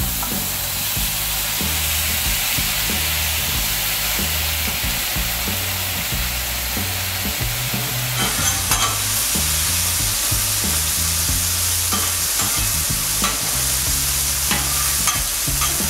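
Diced potatoes sizzling in hot oil on a Blackstone flat-top griddle, a steady hiss. From about halfway through, a metal spatula clicks and scrapes against the steel griddle top as the potatoes are spread out.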